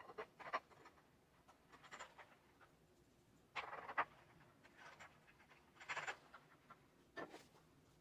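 Faint, scattered clicks and scrapes of hands fitting a wooden cross-brace and working the bolts and nuts at a leg of an upside-down wooden bench, a handful of brief sounds a second or two apart.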